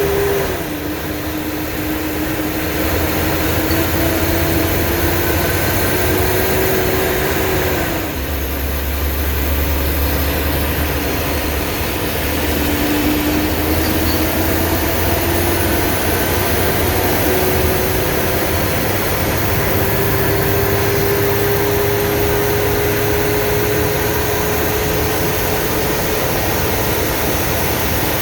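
Blue Bird school bus under way: engine drone and road noise, with the pitch dropping suddenly just after the start and again about eight seconds in as the transmission shifts up, then climbing slowly as the bus gathers speed.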